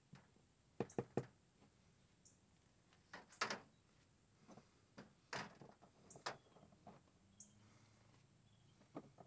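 Faint, scattered clicks and knocks of plastic oil-change gear being handled at an oil catch container: three quick ones about a second in, the loudest about three and a half seconds in, and a few more spaced out after.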